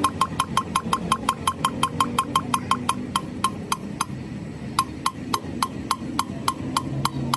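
Hand valve lapping in an aluminium cylinder head: a suction-cup lapping stick is spun back and forth between the palms, and the valve grinds and taps against its seat in rapid, regular metallic clicks, about six a second. The clicks pause briefly around four seconds in and then go on less evenly.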